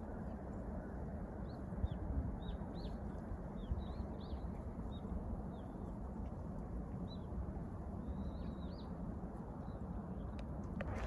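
Small birds chirping: many short, quick call notes scattered throughout, over a steady low background rumble.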